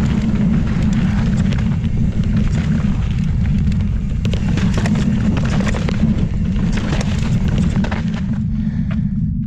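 Heavy wind buffeting on the microphone of a mountain bike descending a granite rock-slab trail, with many sharp clicks and knocks from the tyres and bike over the rock.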